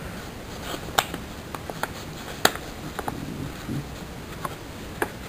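Paper being folded and creased by hand, giving scattered sharp crackles and clicks. The loudest come about a second in and about two and a half seconds in.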